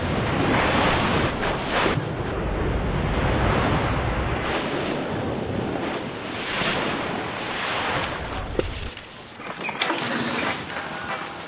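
Skis carving through water, with rushing water and spray in surging swells. About nine seconds in it drops away to quieter scraping with a few sharp clicks.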